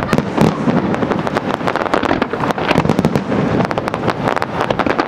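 Aerial fireworks shells bursting in rapid, continuous succession: a dense run of bangs and crackles with no let-up.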